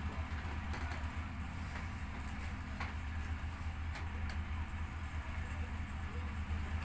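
Steady low rumble of background noise with a few faint ticks.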